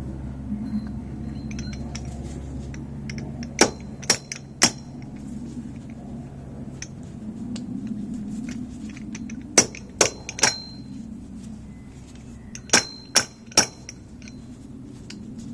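Fork seal driver tapped down onto a new fork seal in a Honda CBF1000 fork leg: three sets of three light, sharp metal clinks, each with a short ring, struck gently to seat the seal down to the circlip groove without damaging it.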